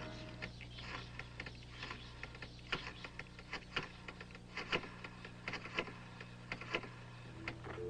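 Irregular sharp mechanical clicks and taps, spaced unevenly, over a steady low hum.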